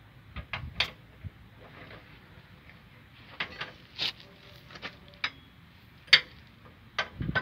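Socket wrench clinking and knocking against steel bolts on an excavator's track chain guard: about a dozen sharp, irregular metallic clicks, the loudest about six seconds in, with a dull thump near the end.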